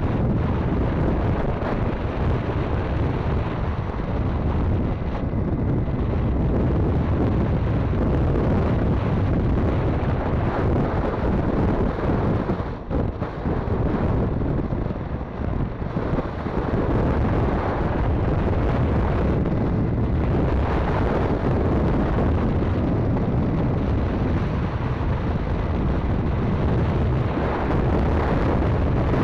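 Steady wind buffeting on the microphone of a 50cc motorcycle moving at road speed, with the ride's low rumble underneath. It dips briefly twice near the middle.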